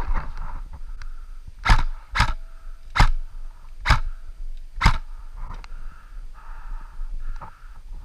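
Five loud scuffing thuds, irregular and roughly a second apart, in the first two-thirds, over a faint steady hiss and low rumble.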